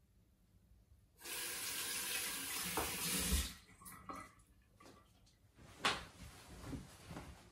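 Bathroom sink tap running for about two seconds, then shut off. It is followed by a few short splashes as water is scooped up to rinse shaving foam off a freshly shaved head.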